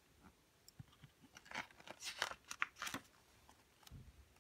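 Page of a picture book being turned by hand: a faint flurry of paper rustles and crinkles, ending in a soft low thud as the page settles.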